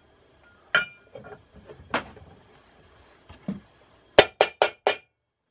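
Metal knocks and clinks as the steel rotor of an LG direct-drive washing machine motor, with a bearing at its hub, is fitted down onto its shaft. There are a few scattered knocks, then a quick run of five sharp knocks a little after four seconds in.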